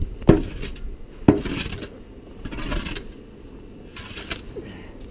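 Snow shovel knocking twice against the ground about a second apart, then scraping through light, fluffy snow in several short strokes.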